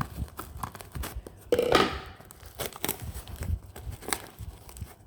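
Packaging being torn and rustled open by hand: irregular tearing and crinkling with scattered clicks, loudest about a second and a half in.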